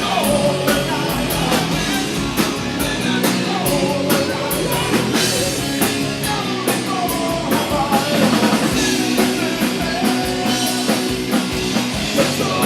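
Live punk rock band playing: a drum kit with steady cymbal hits, electric guitars and bass, some gliding pitched lines over the top. The sound was picked up by the camera's built-in microphone.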